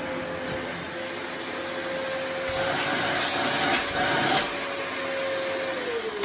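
Dyson upright vacuum cleaner running on carpet: a steady motor whine over a rush of air that grows louder for a couple of seconds in the middle. Near the end the whine drops in pitch as the motor winds down.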